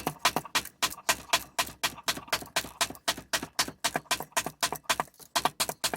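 Tip of a cheap stainless steel folding knife stabbed rapidly and repeatedly into a hard surface in a tip test: a steady run of sharp knocks, about five a second.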